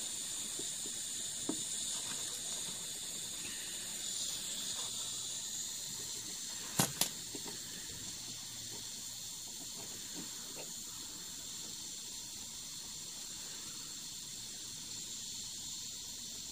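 Gas-powered soldering iron hissing steadily while it heats a solder joint, with two sharp clicks about halfway through.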